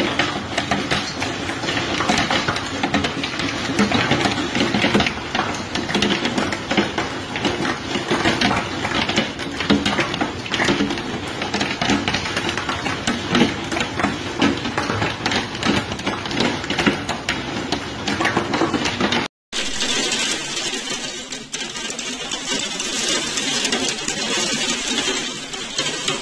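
Hailstones pelting down in a dense, rapid clatter. About 19 seconds in it cuts off abruptly and gives way to a steadier hiss of heavy storm precipitation.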